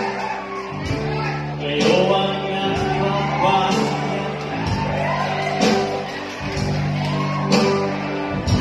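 A man singing a song into a microphone over a live band with guitar and drums, amplified through PA speakers in a large hall.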